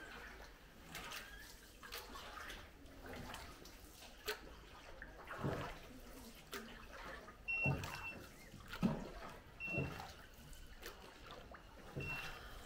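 Oars dipping and pulling through calm water beside a small rowing boat, with splashes and drips at irregular intervals.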